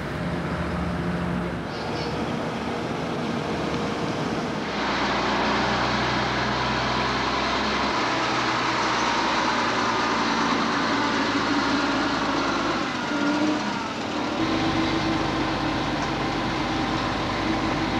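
Heavy truck engine running under load as the truck passes close by, steady and growing louder about five seconds in.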